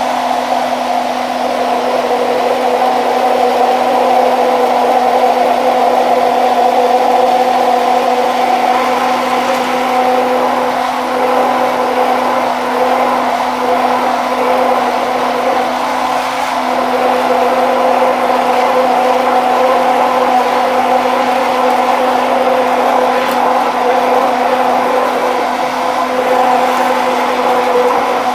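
Electric immersion (stick) blender running at a steady speed in a tall cup, blending oil into mayonnaise with a constant motor hum while it is slowly raised from the bottom of the mixture.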